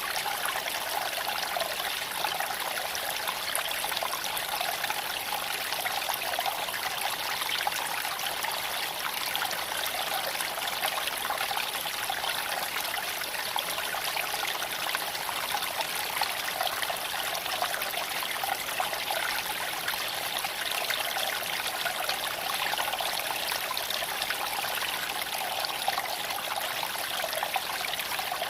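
Creek water flowing and trickling over stones in a steady, even babble.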